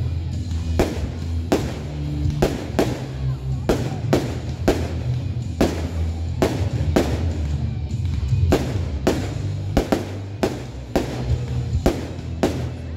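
A rapid series of firework shell bursts, about two sharp bangs a second, from an aerial barrage of small shells. Music with a steady bass line plays underneath.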